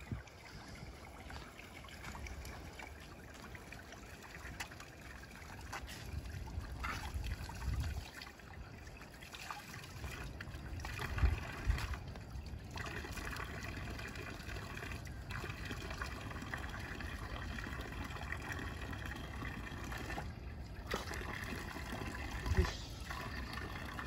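Water running from a park drinking-fountain tap, trickling and splashing onto the drain grate as a man scoops it over himself with his hands. A few dull bumps come through, the loudest about halfway through and another near the end.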